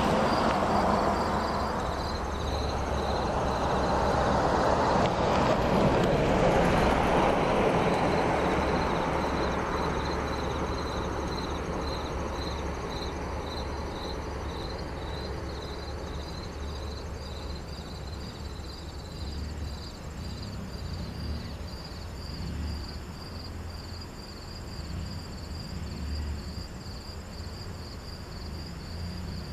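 A car driving away down the street, its noise fading gradually over the first ten seconds or so. Insects keep up a steady, evenly pulsed chirping.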